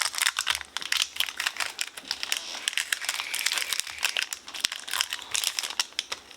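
Foil wrapper of a Pokémon card booster pack crinkling and crackling as it is handled and opened, in a dense irregular run.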